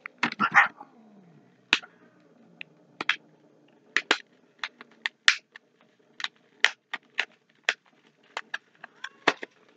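A cat gives a short falling cry just at the start. Then a candy bar's packaging is handled and opened, in a long run of sharp crinkles and crackles.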